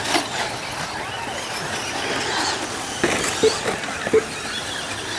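Radio-controlled off-road cars running on a dirt track, motors and tyres on loose dirt, with a few sharp knocks about three to four seconds in.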